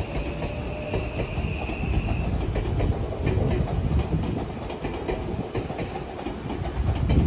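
Red Odakyu Romancecar express train running past, a steady low rumble with its wheels clicking over the rail joints from about two and a half seconds in. A steady high tone stops about two seconds in.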